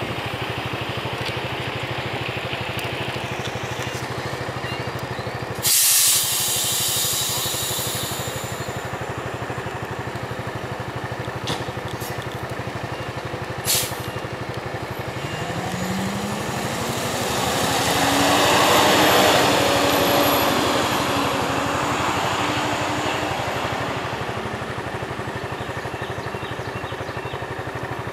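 Heavy diesel engine of a fire truck idling steadily, with a sharp burst of air-brake hiss about six seconds in that fades over a couple of seconds. Past the middle, a vehicle engine rises in pitch and grows louder, loudest about two-thirds through, then fades.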